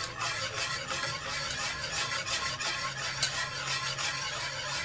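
Wire whisk beating a thin custard mixture of hot milk in a saucepan: rapid, rhythmic swishing and scraping as the wires drag through the liquid and against the pan, with a sharper tick against the pan about three seconds in.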